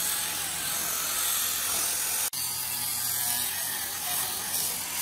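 Electric angle grinder with a sanding disc running steadily against hardwood, sanding the edges of a carved frame. The sound cuts out for an instant just over two seconds in.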